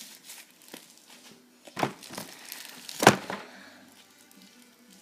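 Slime being squeezed and pulled apart by hand, with soft crackling and two louder squishes about a second apart, the second the loudest.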